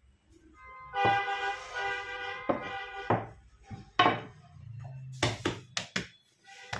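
A held, pitched tone for about two seconds, then sharp knocks of a rolling pin against a marble work slab: one about four seconds in and a quick cluster near the end.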